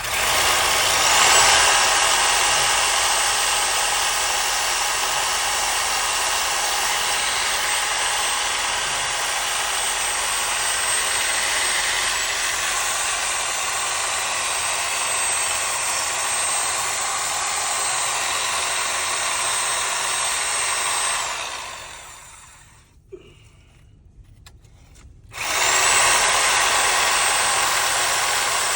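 Reciprocating saw (Sawzall) cutting through cast iron pipe, running steadily with a high motor whine for about twenty seconds. It stops for a few seconds with a single click, then starts cutting again near the end.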